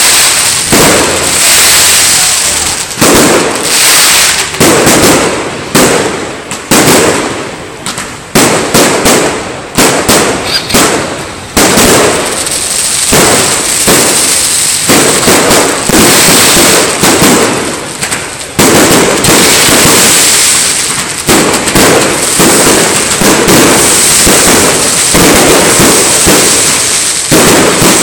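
Fireworks and firecrackers going off in a dense, unbroken barrage of cracks and bangs, very loud throughout, thinning briefly about a third of the way in before building again.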